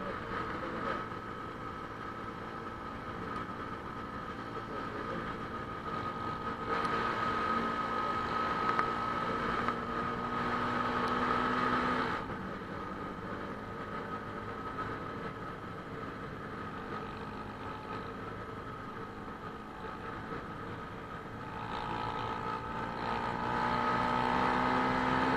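Motorcycle engine running under way with wind noise. Its pitch climbs as it accelerates about seven seconds in, drops suddenly at about twelve seconds, and climbs again near the end.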